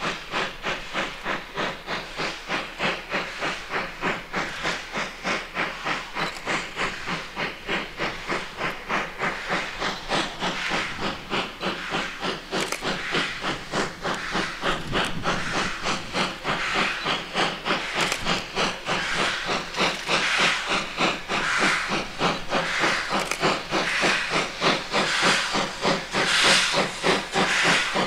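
Steam locomotive 56 548, a former German class 52 two-cylinder 2-10-0, chuffing as it works toward the listener: a steady rhythm of hissing exhaust beats, about three a second, growing louder as it approaches.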